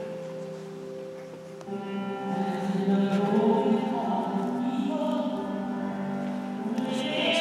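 Recorded music for the puppet show: a choir singing long held chords that swell louder about two seconds in.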